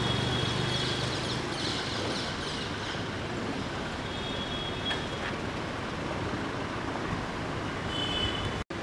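Street traffic: a steady hum of car engines and tyres, with a low engine hum in the first second or so and a car going by close about four seconds in. A few short high tones sound over it.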